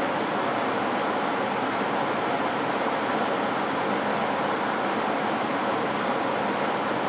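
Biological safety cabinet's blower running: a steady, even rush of air.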